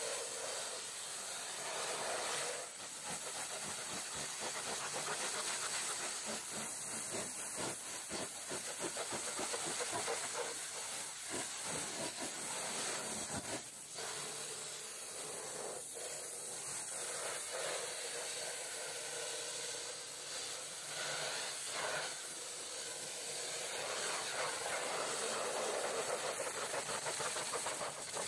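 High-pressure washer jet blasting mud off a truck's wheel rim and tyre: a steady hissing spray whose tone shifts as the jet moves over the rim and tyre.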